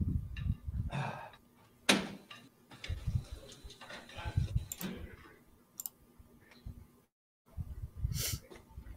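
Drinking fountain running for a couple of seconds as a man drinks from it, with knocks and handling noise from a handheld phone microphone. The audio cuts out completely for a moment near the end.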